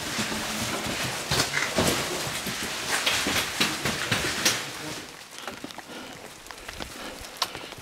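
Light rain falling, with irregular sharp taps and clicks throughout; the sound drops quieter about five seconds in.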